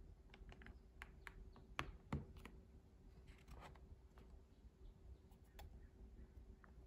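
Faint handling sounds of a cardboard box and a computer mouse being lifted out of its packaging tray: scattered light taps and clicks, with two louder knocks about two seconds in, over a faint steady hum.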